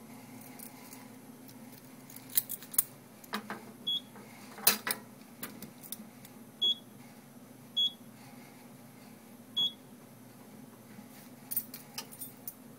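Fire alarm control panel being operated by hand: sharp clicks and handling knocks, then three short high beeps, each starting with a click, the first two about a second apart and the third nearly two seconds later, then a few more clicks. A steady low hum runs underneath.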